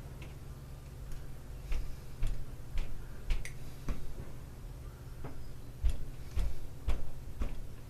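A run of light taps or clicks, about two a second and fairly even, from hand work on small-engine parts, over a steady low hum.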